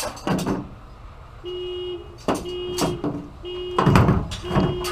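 A few scratchy strokes of a hand wire brush scrubbing aluminum clean before welding, the loudest about four seconds in. From about a second and a half in, an electronic beeper sounds about once a second, each beep about half a second long.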